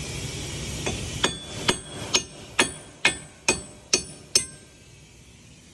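A hammer knocks a wheel stud out of a car's wheel hub: about eight sharp metallic blows, roughly two a second, each ringing briefly.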